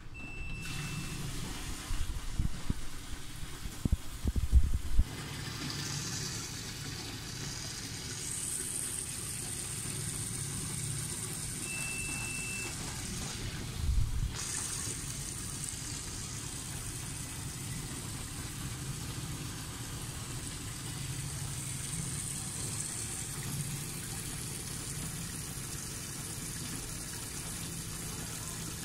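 Water running steadily from the spout of an instant electric geyser and splashing below. A few knocks and bumps come in the first five seconds, before the flow settles.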